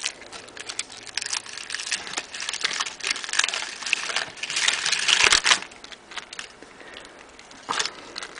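Foil wrapper of a chocolate surprise egg crinkling and crackling as it is unwrapped, for about five seconds, followed by a short sharp click near the end.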